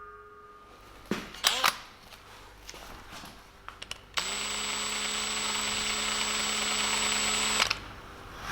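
An electric power tool starts, its pitch rising briefly as it spins up, runs steadily for about three and a half seconds, then stops suddenly. A few sharp knocks and clicks come before it.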